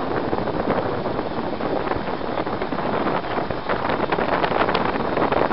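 Engine and road noise inside a moving vehicle's cab, a dense, steady rush with wind buffeting the microphone and a few short rattles about four seconds in.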